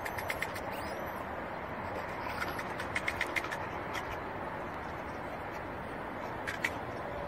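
Steady outdoor background noise with scattered short, high ticks, a quick run of them about three seconds in and another pair near the end.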